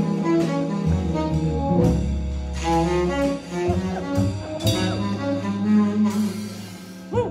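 Tenor saxophone playing a jazz-blues melody line over sustained organ bass notes. The phrase trails off near the end, and a new, louder one starts right at the close.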